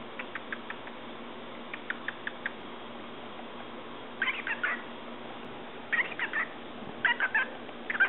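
Cockatiel chattering in four short bursts of squeaky babble in the second half, the last one loudest. Faint quick clicks come earlier.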